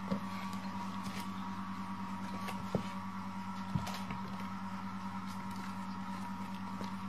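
A steady low hum throughout, with a few soft, sharp taps from kittens playing on the floor near the start and around three and four seconds in.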